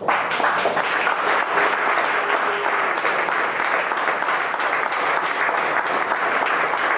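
Audience applauding: many hands clapping, starting suddenly and holding at a steady level.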